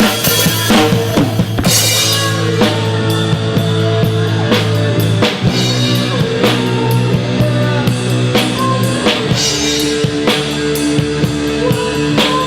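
Rock music with a full drum kit, bass drum and snare or rimshot hits, played over held bass notes and other sustained pitched parts.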